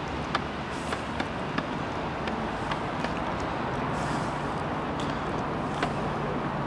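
Steady outdoor background noise with a faint low hum, like distant road traffic, broken by a few light clicks, most of them in the first three seconds.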